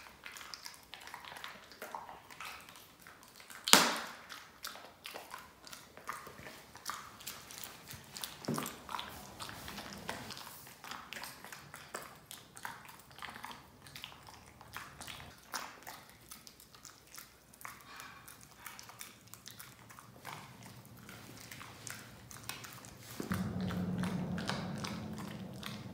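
A dog chewing and crunching a hard treat, with many small crunchy clicks and one sharp, loud crack about four seconds in. Near the end a steady low hum starts underneath.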